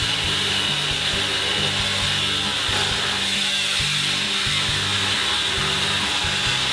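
Pneumatic cut-off tool with an abrasive wheel grinding into sheet-metal trunk pan: a steady high whine and hiss. Background music with a moving bass line plays under it.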